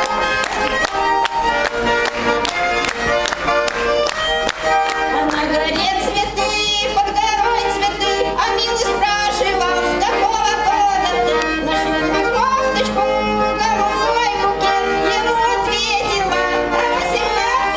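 Russian garmon (button accordion) playing a lively chastushka tune in a steady beat, with a woman singing chastushki over it.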